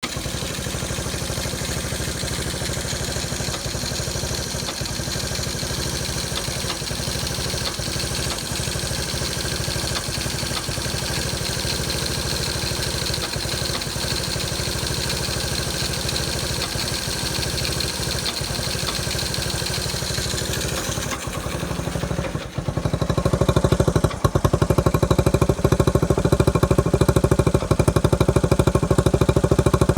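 1979 Honda CT90's small single-cylinder four-stroke engine idling, with an occasional clanking from excessive slack in the cam chain. About two-thirds of the way through, after a brief dip, the running becomes louder.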